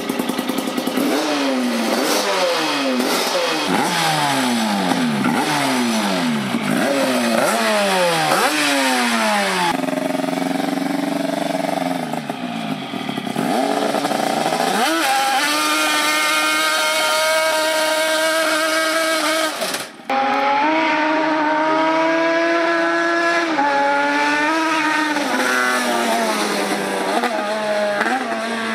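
Two-cylinder, two-stroke riding mower engine on a single exhaust pipe, revved in quick repeated blips for about ten seconds. It then climbs and holds at high revs as the mower drives, with the pitch rising and falling again in the last part.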